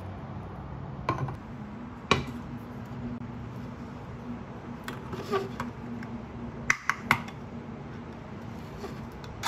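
Steel food can with a ring-pull lid being handled and opened: scattered sharp metallic clicks and taps, then a tight run of three sharp clicks about two-thirds of the way through as the pull-tab is levered up and cracks the lid's seal.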